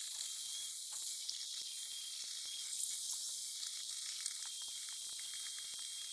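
Faint steady high-pitched hiss with scattered small clicks and ticks; no machine is running.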